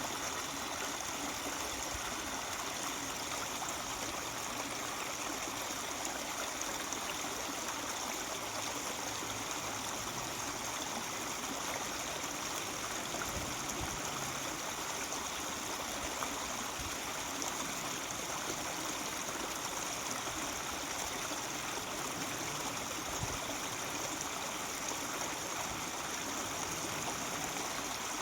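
Mountain stream babbling and trickling steadily over rocks.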